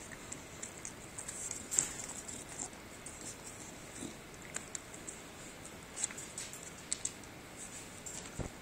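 Irregular light taps and clicks, with a few louder ones scattered through, as a blue-streaked lory moves and pecks about the floor of its wire cage.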